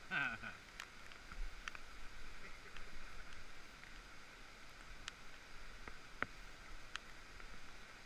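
Scattered clicks and knocks from walking on a suspension bridge walkway, over steady rainforest ambience with a faint high hum. A short falling call sounds right at the start.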